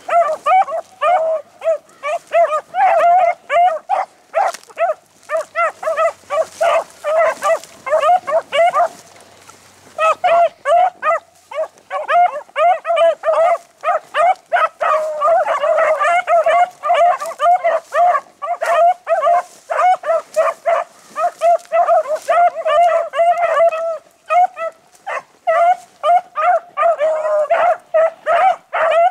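Beagle hounds baying on a rabbit's track: a rapid, nearly unbroken chorus of ringing barks, with a short lull about nine seconds in.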